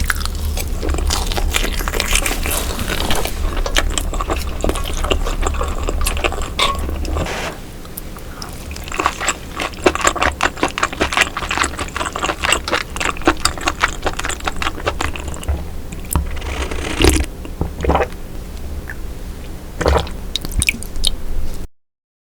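Close-miked chewing and biting of cooked baby octopus, a dense run of crunchy, wet clicks. A low hum sits underneath for the first seven seconds or so, then stops. The sound cuts off abruptly just before the end.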